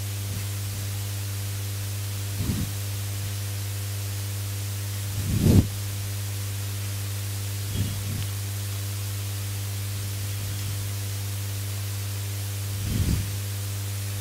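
Steady low electrical hum, with a few soft, brief sounds about two and a half, five and a half, eight and thirteen seconds in, the one at five and a half seconds the loudest.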